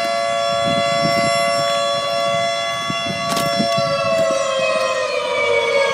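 Air-raid civil defense siren sounding a steady wail, its pitch starting to fall slowly about four seconds in. A brief click comes about three seconds in.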